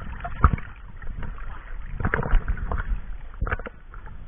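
Sea water sloshing and splashing, with a low rumble and a few short irregular splashes.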